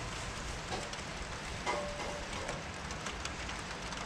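Steady rain hiss, with scattered drops ticking on nearby surfaces.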